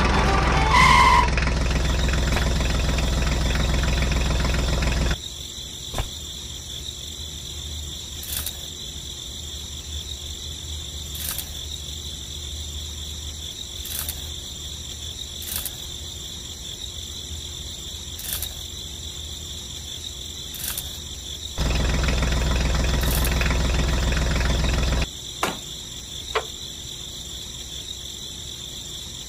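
A small motor runs in two stretches with a steady low hum, first for about five seconds, then for about three and a half seconds starting a little after twenty seconds in, stopping abruptly each time. Between the runs there are faint ticks every couple of seconds, and a steady high-pitched whine runs underneath throughout.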